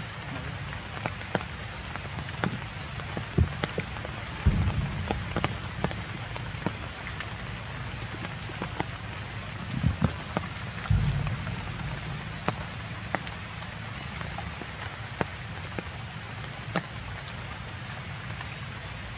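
Rain falling, with scattered drops ticking irregularly on a nearby surface. A few low thumps come about four and a half, ten and eleven seconds in.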